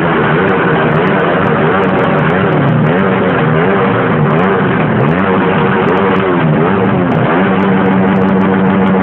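Motorcycle engine being revved over and over, its pitch dipping and climbing about once a second, then held at a steady speed near the end.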